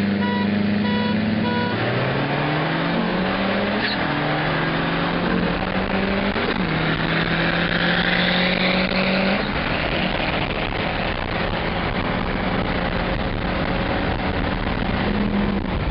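Car engine pulling hard in a roll race, heard from inside a car: the engine note climbs, drops at upshifts about four and six and a half seconds in, then holds high under heavy wind and road noise.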